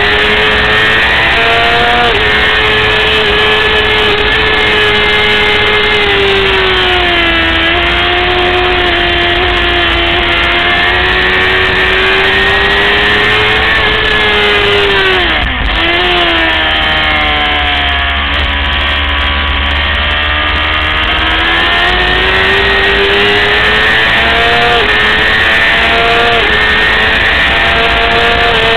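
600cc racing motorcycle engine running hard at high revs, its pitch rising and falling as the rider works the throttle and gears. About halfway through the note drops sharply for a moment, then stays lower for a few seconds before climbing back up.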